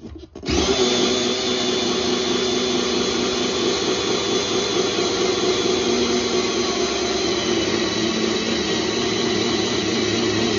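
Cordless drill with a round hole-saw cutter running steadily as it bores through the plywood behind a garage wall; it starts about half a second in.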